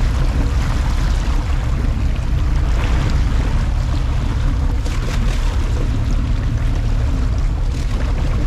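Sport-fishing boat's engine running steadily, with water rushing along the hull.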